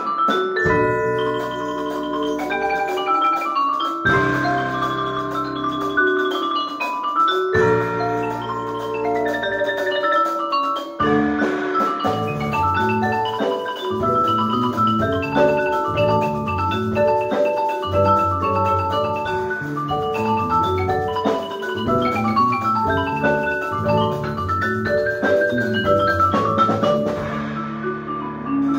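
Percussion ensemble of marimbas and other mallet keyboard instruments playing: long-held low chords under higher melody notes at first, then about eleven seconds in a busier section of quick, evenly pulsing low notes under the melody.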